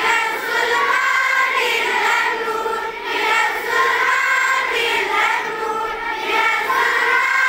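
Many schoolchildren singing a Kashmiri prayer song together in unison. The singing starts suddenly and goes on steadily.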